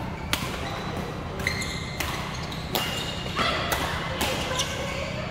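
Badminton rally: about half a dozen sharp racket strikes on the shuttlecock, with court shoes squeaking briefly on the hall floor between the hits.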